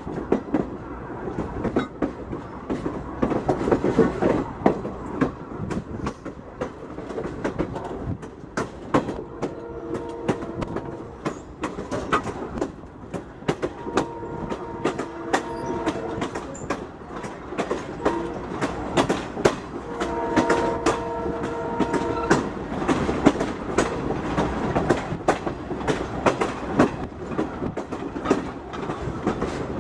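A train's rail wheels clatter over joints in a steady clickety-clack, while the locomotive's multi-chime air horn, a Leslie RS3L, sounds a few blasts of about two seconds each in the middle stretch.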